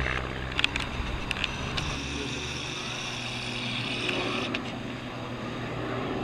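Steady drone of a CASA CN235 twin-turboprop aircraft's engines and propellers, growing a little louder near the end as it comes in low. A few sharp clicks in the first two seconds.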